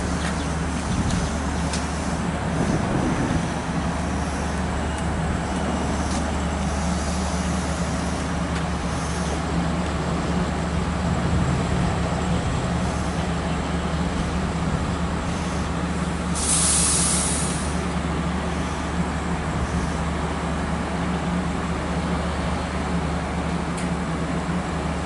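Stopped LIRR diesel push-pull train with a C3 bilevel cab car idling at a station platform: a steady low diesel hum throughout, with one short loud hiss of air from the brakes a little over halfway through.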